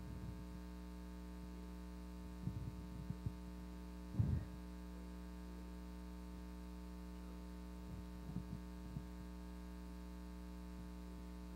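Steady electrical mains hum with its overtones, picked up through the microphone and sound system. A few faint short sounds come through about two and a half, four and eight and a half seconds in.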